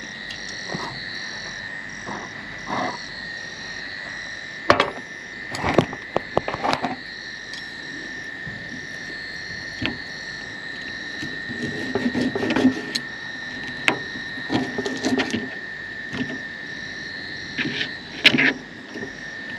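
A steady chorus of frogs calling, a high continuous trill with a pulsing call above it. Over it, a knife and fork cutting pork ribs on a plastic plate give sharp clicks and scrapes every few seconds.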